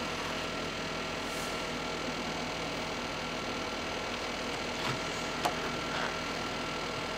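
Steady background hum and hiss, with a few faint light clicks about two-thirds of the way through.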